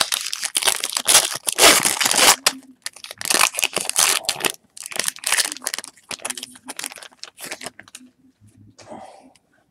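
Foil wrapper of a Topps Chrome football card pack being torn open and crinkled in the hands: loud rustling bursts over the first half, then lighter crinkles that thin out near the end.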